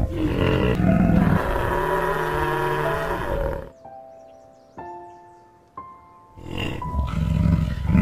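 Big cat roaring and growling in deep calls, over background music. A little past the middle the roaring breaks off for a couple of seconds, leaving a few soft held music notes, then starts again.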